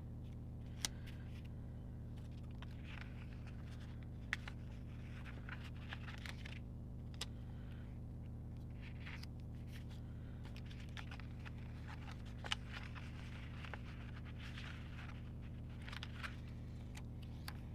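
Paper and sticker sheets being handled: faint rustling and peeling, with a few sharp taps, over a steady low hum.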